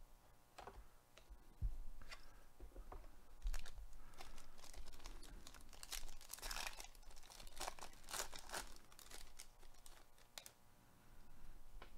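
Plastic foil wrapper of a Panini Chronicles baseball card pack being torn open and crinkled by gloved hands: a run of crackly rips and rustles lasting several seconds.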